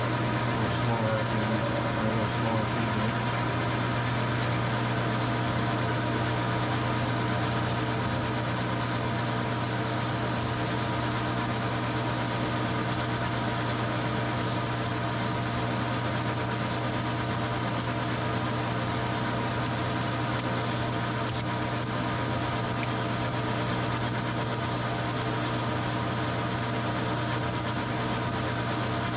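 Metal lathe running steadily with a constant hum from its motor and gearing, turning a steel transmission output shaft during a spring pass, a light finishing cut that repeats the last pass.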